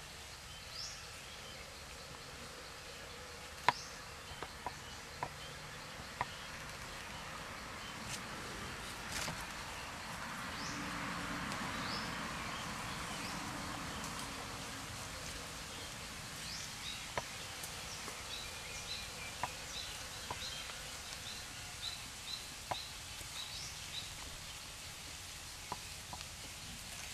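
Outdoor background ambience: a steady hiss with short high chirps from small animals, a run of them repeating about two or three times a second in the second half. A few sharp clicks come through, the loudest a few seconds in, and a broad rushing swell rises and fades near the middle.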